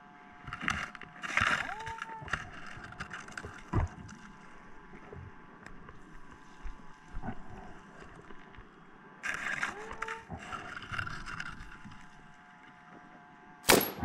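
Underwater sound of a gloved hand digging and scraping through gravel, with a metal detector's short tone sliding up and holding, twice. Near the end comes one sharp, loud knock.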